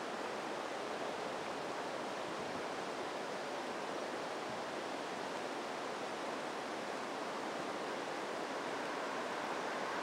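Steady, even rushing background noise with no distinct events.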